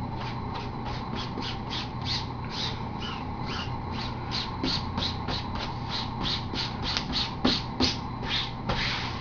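Fingers rubbing a dry-apply carbon-fibre-look protective skin down onto a MacBook's surface: a steady run of swishing strokes, about three a second.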